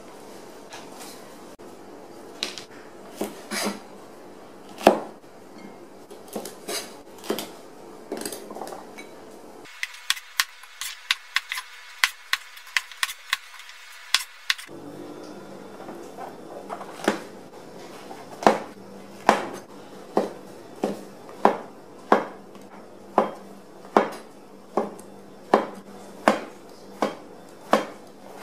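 Cleaver knocking down onto a plastic cutting board while vegetables are cut. It starts with scattered knocks and clinks, then a quick run of strokes through okra, then steady slicing strokes about one a second through mushroom stems.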